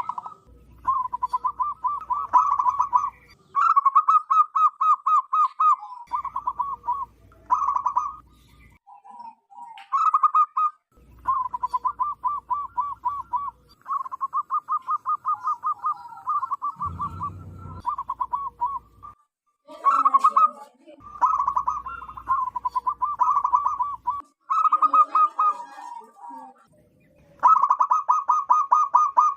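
Zebra doves (perkutut) singing: repeated bouts of rapid staccato cooing notes, about eight a second, each bout lasting one to three seconds with short pauses between.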